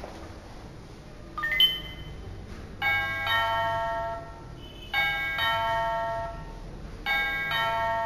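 Electronic doorbell chime of a fingerprint glass-door lock, rung from its keypad: a short rising beep, then the same multi-note ding-dong melody played three times, about two seconds apart.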